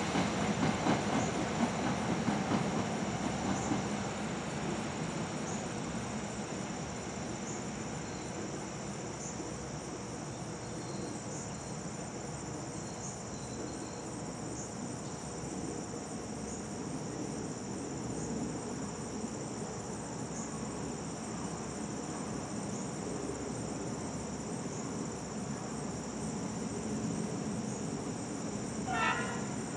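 A steady high-pitched insect chorus from the grass, with faint regular pulses. Over the first few seconds the rumble of a SEPTA Silverliner IV electric train fades as it draws away, and a brief sharp sound comes near the end.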